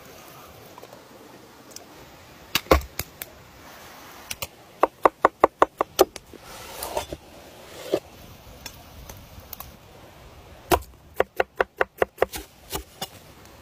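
A broad chef's knife chopping on a thick wooden cutting board while cutting carrots and an onion. There are a few single strokes, then two quick runs of about five to six chops a second, one near the middle and one near the end.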